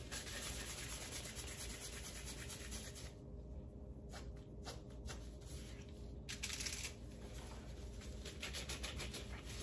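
Faint soft rubbing and patting of disposable-gloved hands shaping a ball of oat-flour dough and pressing it flat onto a foil-lined rack, a little louder about six and a half seconds in.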